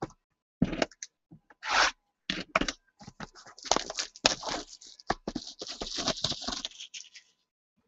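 Plastic shrink wrap being torn off a cardboard trading-card box, crinkling and tearing in irregular bursts as the box is handled.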